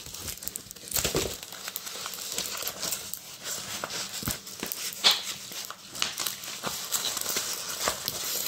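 Clear plastic film on a rolled diamond-painting canvas crinkling and crackling as the canvas is unrolled and flattened by hand, in irregular small crackles with a few sharper rustles.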